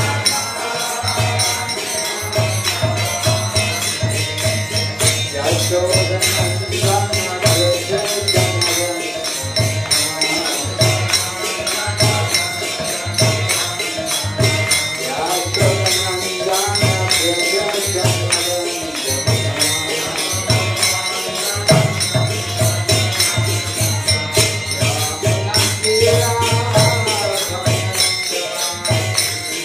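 Devotional kirtan: a voice singing a chanted melody over brass hand cymbals (karatalas) ringing in a fast, steady rhythm, with a low regular beat underneath.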